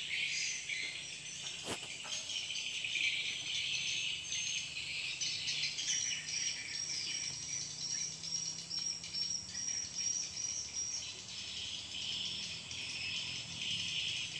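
Dense chorus of forest insects chirring steadily, with a higher, steady tone joining in for about five seconds in the middle. A single sharp click comes just under two seconds in.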